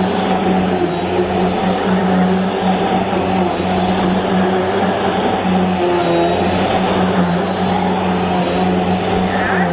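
Bissell PowerForce Helix Turbo upright vacuum cleaner running while vacuuming a rug: a steady motor hum with a thin high whine above it.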